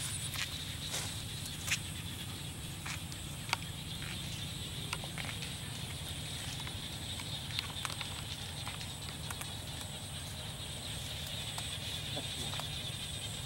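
Outdoor field ambience: a steady high-pitched buzz over a low rumble, broken by scattered, irregular sharp clicks.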